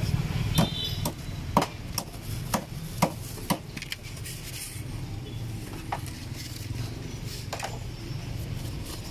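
Cleaver chopping roast Peking duck on a thick wooden chopping block: seven sharp chops about half a second apart that stop about three and a half seconds in, then two lone knocks, over a steady low hum.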